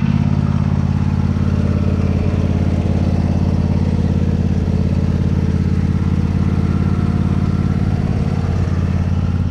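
Old riding lawn mower engine running steadily with the choke off, running fine after the sputtering of its cold start.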